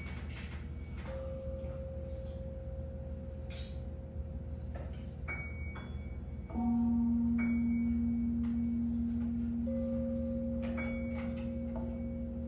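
Sparse free-improvised music from a piano, bass clarinet, double bass and drums quartet: a long held tone runs through, a stronger, lower held tone enters about six and a half seconds in and slowly fades, and scattered light clicks and struck metallic pings ring briefly.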